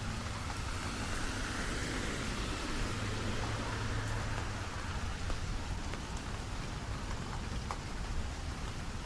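Steady rain falling, with scattered small drip ticks. A broad swell of hiss rises and fades over the first few seconds.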